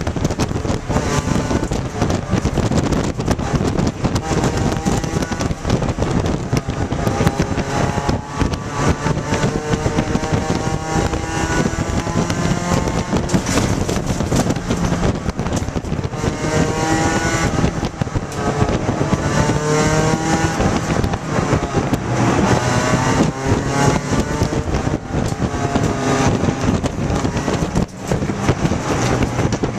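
Inside the cabin of a 1995 Neon ACR race car at speed: its four-cylinder engine note climbs in pitch again and again as it pulls through the gears, dropping back between, over loud road and wind noise.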